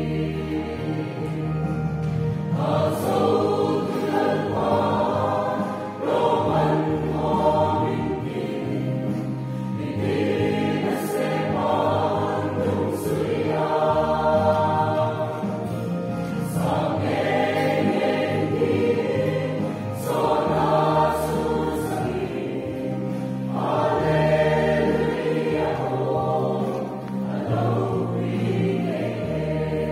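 A group of voices singing a hymn together in phrases a few seconds long, with steady low notes underneath.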